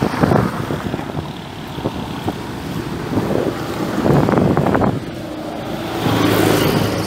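Wind buffeting the microphone over road traffic, with a vehicle engine passing near the end.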